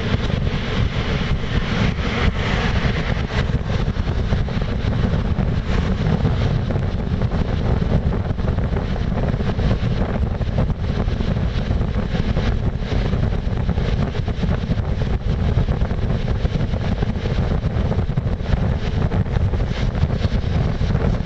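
Express passenger train running at speed, heard from inside the carriage at the window: a steady rumble of wheels on the track with wind rushing past the microphone.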